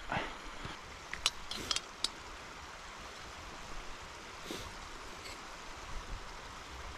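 A few light clicks and knocks of camp cooking gear being handled, over a faint steady rushing hiss.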